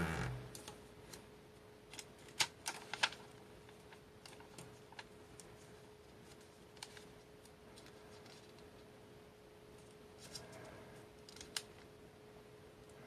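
A sheet of origami paper being folded and creased by hand on a tabletop: scattered crisp paper crackles and taps, a few sharp ones between two and three seconds in and more near the end. A faint steady hum lies under it.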